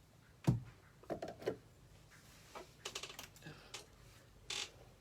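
Irregular clicks and taps, a dozen or so, with one louder knock about half a second in.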